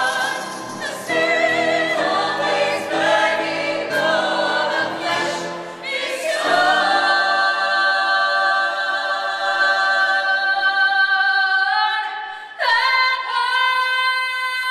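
Mixed choir of young voices singing together with a female lead voice. From about halfway they hold one long chord; near the end it breaks off briefly and a new held chord comes in.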